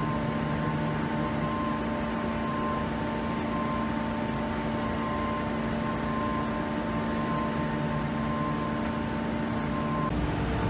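Steady drone of construction-site machinery with several held hums over street traffic noise, a higher whine cutting in and out. The hums stop near the end, leaving a deeper rumble.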